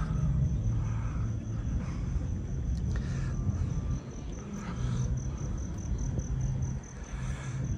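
Outdoor street ambience: a steady low rumble, with an insect chirping in a high, evenly pulsed trill several times a second.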